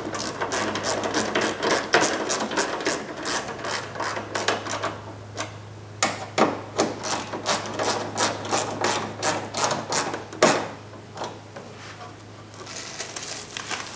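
Hand ratchet with a 10 mm socket clicking in quick runs as it tightens the bolts of a headlight assembly, in two bouts with a short pause about five seconds in. A softer noise follows near the end.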